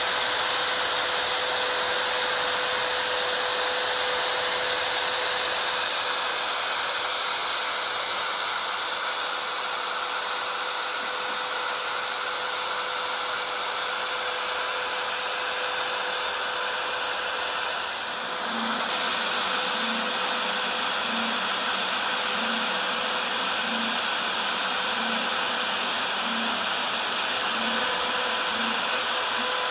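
CNC router spindle running with its end mill cutting 6 mm aluminium sheet: a steady high whine over a dense cutting hiss. About 18 seconds in the sound briefly dips and then comes back a little louder, and from there a faint low pulse repeats roughly every second and a half.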